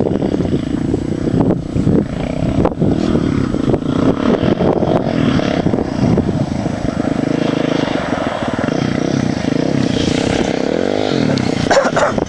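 Yamaha Raptor 660 quad's single-cylinder four-stroke engine running steadily under way. Near the end the revs drop and climb again.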